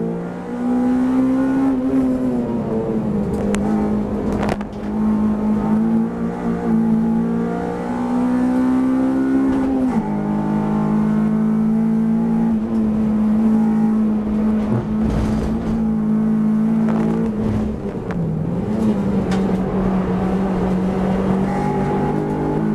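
Race car engine heard from inside the cockpit, pulling hard. Its pitch climbs under acceleration, drops sharply at a gear change about ten seconds in, holds steady, then dips as the car brakes for a corner near the end. There are a couple of sharp knocks about four seconds in.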